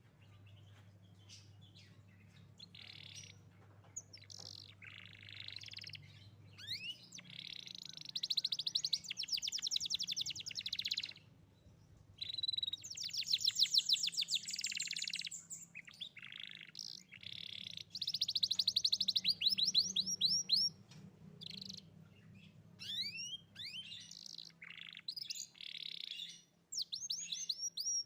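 Young domestic canary singing: phrases of rapid trills and rising whistled notes, each a few seconds long with short breaks between them.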